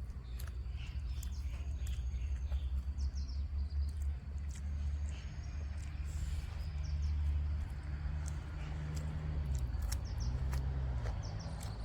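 Outdoor ambience: small birds chirping now and then over a steady low rumble, with scattered sharp clicks.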